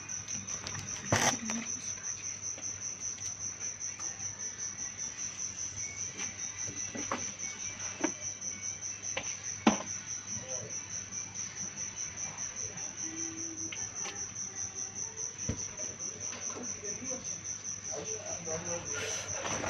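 An insect, likely a cricket, chirping in a steady, evenly pulsed high trill, with a sharp knock about a second in and a few fainter clicks.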